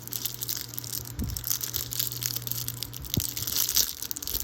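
Plastic packaging crinkling and rustling as it is handled and pulled open, with a couple of dull knocks about a second in and again near three seconds.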